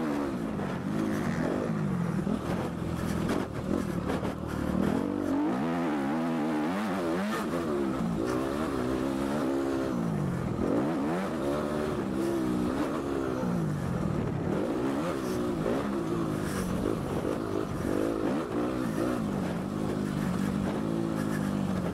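Suzuki RM-Z250 four-stroke single-cylinder motocross engine under hard riding, its pitch rising and falling again and again as it is revved out, shifted and backed off.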